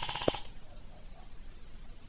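Airsoft gun firing full-auto: a fast rattle of about twenty shots a second with a sharp crack in it, cutting off about a third of a second in.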